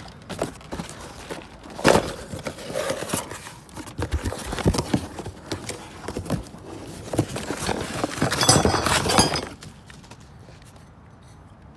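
Metal door hardware, locks and hinges, clanking and clinking as it is rummaged and moved around, with one loud knock about two seconds in and a dense rattling clatter near the end before it goes quiet.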